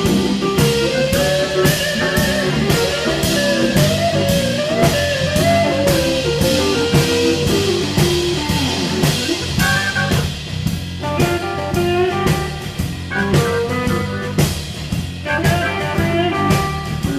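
Blues band playing an instrumental, with Hammond organ, electric guitar and drum kit. The drums keep a steady beat of about three strokes a second under a lead line whose pitch bends up and down.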